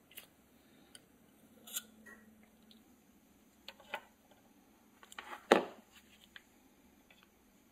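A few small metallic clicks and knocks from spring-loaded alligator clips being snapped onto the electrodes of a nickel-plating bath. The loudest knock comes about five and a half seconds in.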